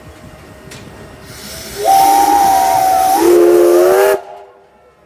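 Steam locomotive whistle blowing: a hiss of steam builds, then a single higher note sounds for over a second before dropping to a lower, several-toned chord. The whistle cuts off sharply about four seconds in.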